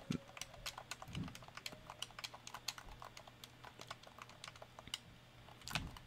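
Faint, irregular clicking of game-controller buttons being pressed, several clicks a second, picked up from behind an original Blue Yeti Blackout microphone. The owner counts this pickup of button presses from behind the mic as the microphone's failing.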